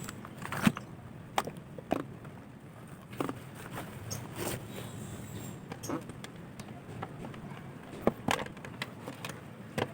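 Scattered clicks and knocks of small objects being handled on a workbench, about a dozen irregular hits, the loudest near the start.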